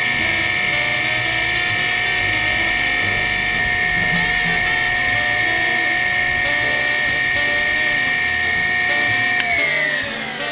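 Sherline milling machine spindle running with a steady high whine, then switched off about nine and a half seconds in, its pitch falling as it spins down.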